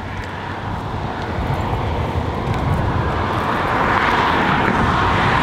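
A road vehicle approaching, its noise rising steadily in a loud rush.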